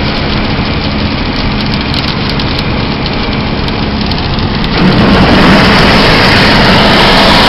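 Car on the move: a steady engine hum under road and wind rush, with scattered faint ticks. About five seconds in, the rush turns suddenly louder and fuller.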